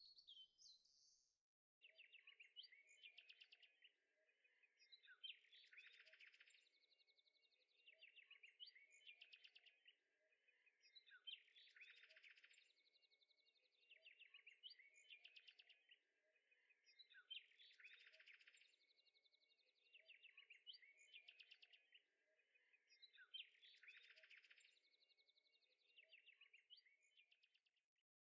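Very faint high chirping, bird-like, that repeats in the same pattern about every six seconds, like a looped background track.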